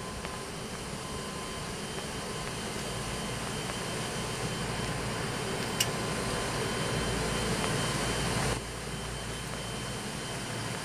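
ATR 72-200's turboprop engines and propellers running during taxi, heard inside the cabin as a steady drone that slowly grows louder, then drops suddenly about eight and a half seconds in. A single sharp click a little before that.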